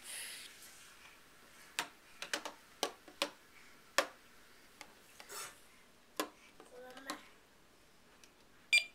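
Toy microwave's plastic buttons and door clicking and tapping, irregularly spaced, then a short electronic beep near the end.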